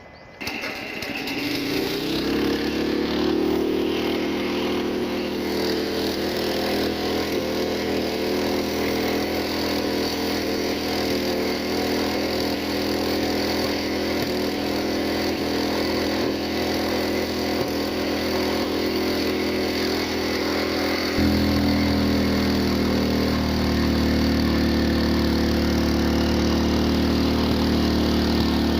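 A small engine starts up, settles into a steady run, and steps up in speed about three-quarters of the way through.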